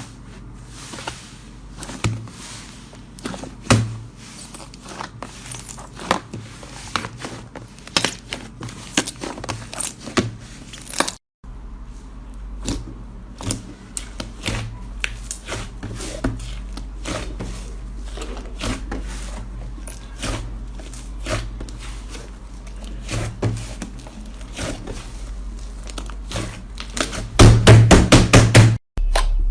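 Slime being squeezed and poked by hand: a string of sticky crackles and clicks. There is a brief silent break about eleven seconds in, and a fast burst of loud clicks near the end.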